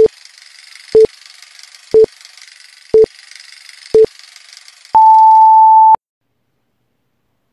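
Film-leader countdown sound effect: a short beep once a second, five times, then a longer, higher-pitched beep lasting about a second that marks zero, over a faint steady background noise.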